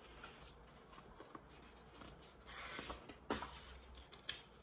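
A page of a large picture book being turned by hand: a soft paper rustle a little past halfway, then a crisp snap of the page, and a lighter tap near the end.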